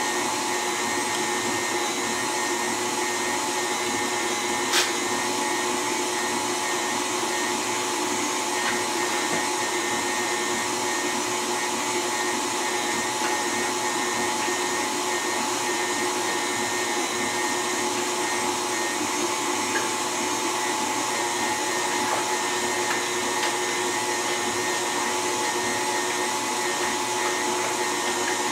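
KitchenAid stand mixer running steadily at speed 3, driving its meat grinder attachment as raw meat is ground. One sharp click about five seconds in.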